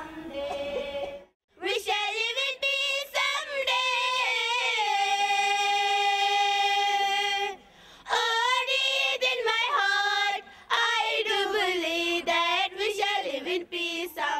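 A group of schoolchildren singing together in an assembly song, with a long held note in the middle. The singing breaks off briefly about a second in and again about halfway through.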